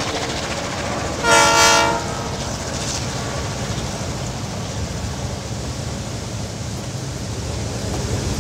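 Train running with a steady low rumble; a little over a second in, the horn sounds one short blast.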